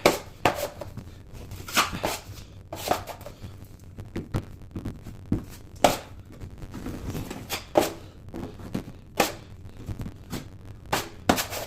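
Drywall knife spreading and scraping joint compound (mud) over a drywall patch: a string of short, irregular scraping strokes, about one or two a second.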